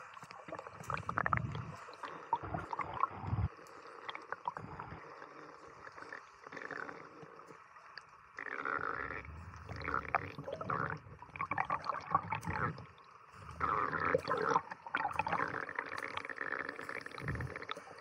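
Water sloshing and gurgling close to the microphone, in irregular swells that rise and fall every second or two.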